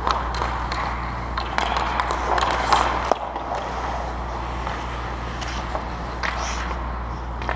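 Ice hockey play on a rink: skate blades scraping and cutting the ice, with scattered sharp clacks of sticks and puck, the sharpest about three seconds in, over a steady low hum.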